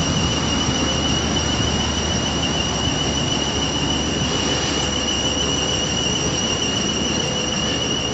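South West Trains Siemens Desiro electric multiple unit running along a station platform: a steady rumble of the train with a constant high whine from its traction equipment.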